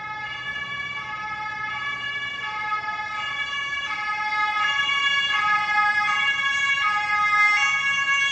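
Ambulance two-tone siren, switching between a high and a low note about every 0.7 seconds. It grows steadily louder, then cuts off suddenly at the end.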